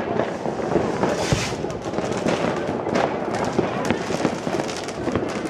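New Year's Eve fireworks and firecrackers going off all at once: a steady stream of many overlapping bangs and crackles with no break.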